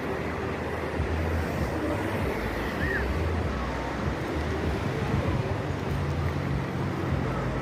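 Wind buffeting the microphone in uneven low gusts, over the steady rush of sea surf.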